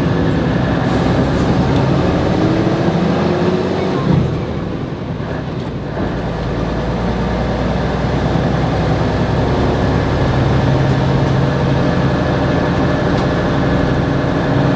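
A vintage bus's diesel engine running under way, heard from inside the cabin. There is a knock about four seconds in, and the engine note drops for about two seconds, then pulls steadily again.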